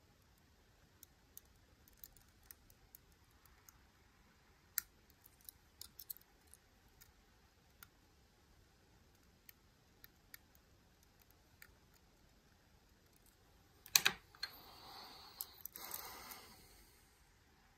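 Faint, scattered small metallic clicks and ticks of a lock pick working inside a Miwa U9 lock. About 14 s in comes a louder clatter of clicks, then a couple of seconds of rustling handling noise.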